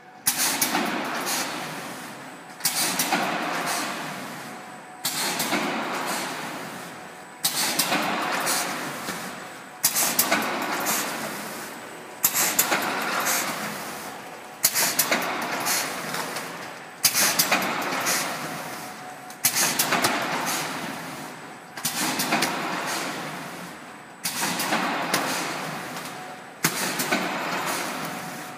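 Vertical form-fill-seal auger packing machine running automatically and repeating its cycle about every two and a half seconds. Each cycle starts with a sudden noisy stroke that fades away over about two seconds, and there is a short lull before the next.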